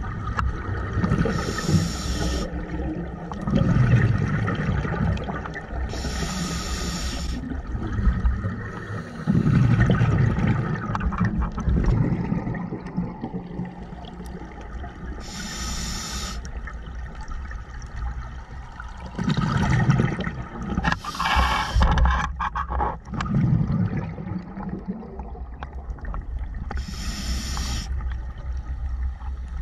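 Scuba diver breathing through a demand regulator underwater: a short hiss on each inhale, about five times, each followed by a burst of bubbling exhaust bubbles, in a slow, regular breathing rhythm.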